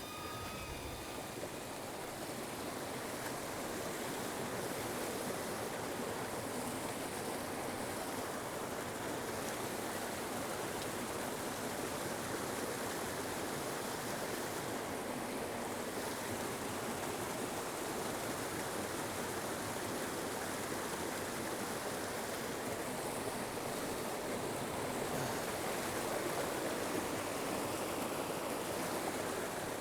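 Mountain creek flowing with a steady rushing sound.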